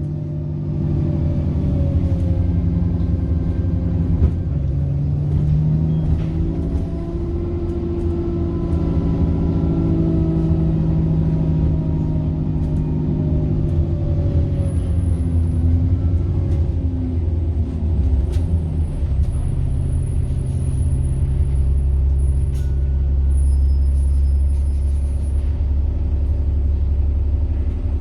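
A bus engine running on the move, its note rising and falling as the bus accelerates and eases off, with a turbocharger whine above it. A few sharp knocks sound late on.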